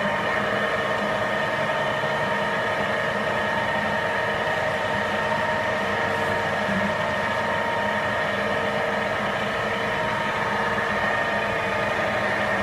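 Steady hum of machinery running, made of several unchanging whining tones.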